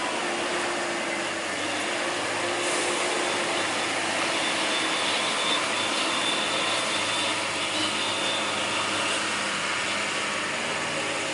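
Heavy laden sand truck's diesel engine running steadily while straining under load on a steep climb: a constant drone with a faint steady hum underneath.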